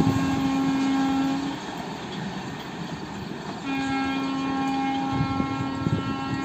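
Horn of the Bhopal–Dr. Ambedkar Nagar Intercity Express's locomotive, sounded as two long steady blasts on one note. The first ends about a second and a half in; the second starts near four seconds and is held to the end. Under it runs the rumble of the train on the rails.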